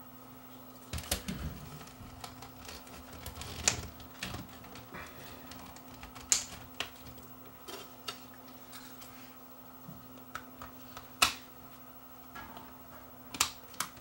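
Irregular small clicks and taps of plastic camcorder housing parts being handled and fitted into place, over a faint steady hum.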